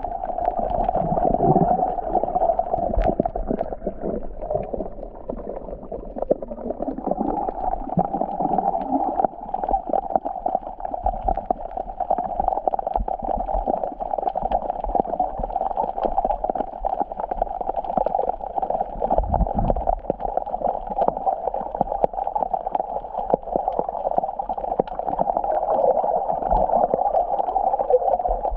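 Sea water sloshing and gurgling continuously, a crackly watery churn with a few dull low thumps.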